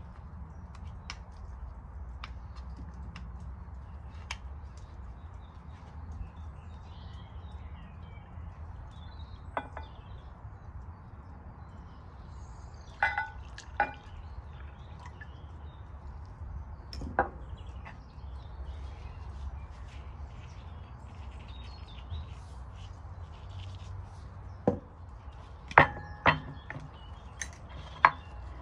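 Scattered sharp clicks and knocks, with a cluster of louder ones near the end, over a steady low rumble. Faint bird chirps come and go in the background.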